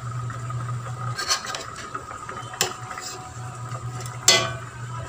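A metal spoon clinks against a stainless steel pot three times, the last the loudest, as fish is settled in it. Under it runs a low hum from the induction cooker, which stops for about two seconds in the middle.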